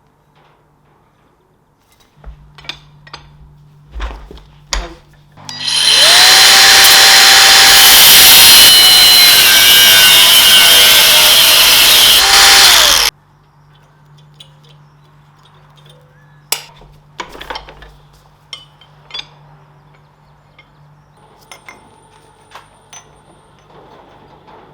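A handheld power tool spins up, runs loud and steady for about seven seconds, then winds down and stops. Scattered clicks and knocks of handling come before and after it.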